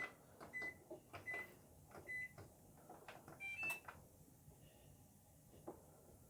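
Frigidaire washer-dryer stack unit's touchpad control beeping as its buttons are pressed, with faint key clicks. There are four short beeps of the same pitch in the first two and a half seconds, then two slightly higher beeps a little past halfway.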